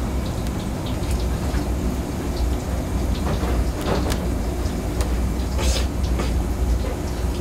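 Eel livers being threaded by hand onto bamboo skewers: a few faint wet ticks and taps over a steady low rumble of background machinery.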